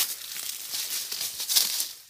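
Dry leaf litter and twigs rustling and crackling in thick brush as a dog and the camera push through, in quick irregular bursts.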